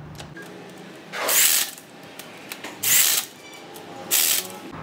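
A power tool run in three short bursts, each about half a second long.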